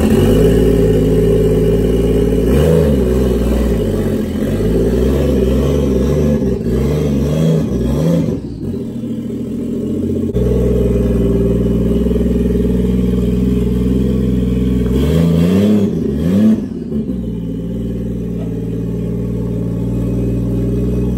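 Toyota 1JZ straight-six swapped into a Lexus IS300, running just after starting, blipped up and down in revs a few times as the car pulls away, then steadier, with a second burst of revving near the middle to late part. It runs on the IS300 ECU's immobilizer chip moved into the 1JZ ECU.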